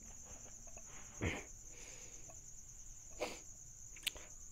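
A steady, faint, high-pitched whine runs under quiet room tone. It is broken by two short soft sounds and a sharp click near the end.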